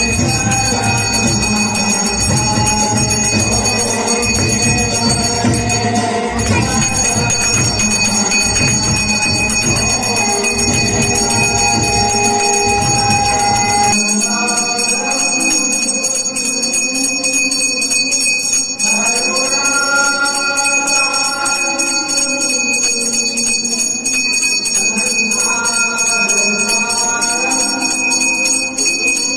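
Puja bell ringing continuously over devotional music. A low, pulsing layer in the music cuts off about halfway through.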